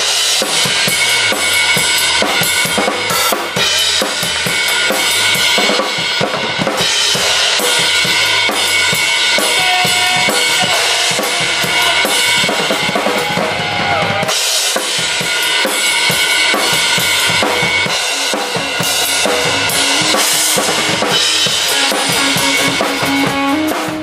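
Drum kit played hard and fast in a drum solo, bass drum and snare strikes under cymbals ringing continuously. Near the end a held pitched note climbs in steps over the drumming.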